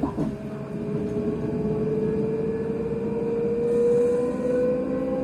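Electric train traction motor whine, heard inside the carriage, rising slowly in pitch as the train accelerates. Right at the start the pitch jumps sharply up and falls back, with a brief dip in loudness: the driving wheels slipping on the wet rail and the traction control cutting back.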